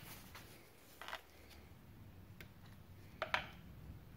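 Faint clicks and scrapes of an outboard motor's choke linkage being worked by hand to pop a rod off its bushing. There is a small click about a second in and a sharper one a little after three seconds, over a faint low hum.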